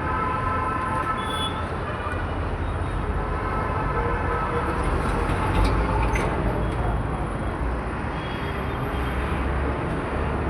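Road traffic passing steadily: a continuous rush of vehicle engines and tyres over a low rumble.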